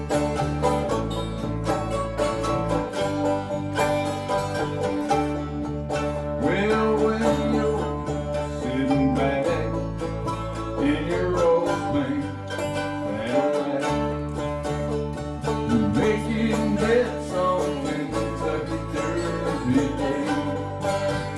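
Live country-rock band playing: banjo picking, acoustic guitar strumming and electric guitar over steady low bass notes, with a man singing lead from about six seconds in.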